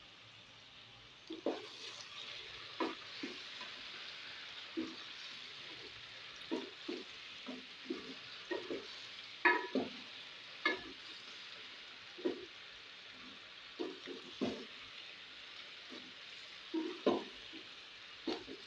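A wooden spatula stirring potato chunks in thick masala gravy in a pot, knocking and scraping against the pot at irregular intervals over a steady sizzle of the cooking masala.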